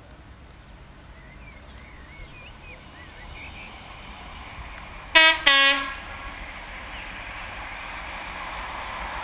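HST Class 43 power car's two-tone air horn sounding two short blasts, high then low, about five seconds in, while the train's rumble grows steadily louder as it approaches through the tunnel. Faint bird chirps in the first few seconds.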